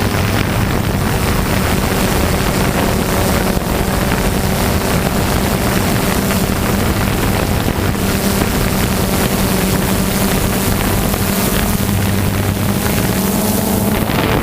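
Piston engine of a propeller aircraft running steadily with a constant drone, rising slightly in pitch near the end, with wind buffeting the microphone.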